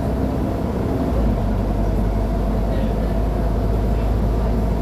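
Diesel engine of a Mercedes-Benz O500UA articulated city bus running steadily, a deep low drone with a faint steady whine.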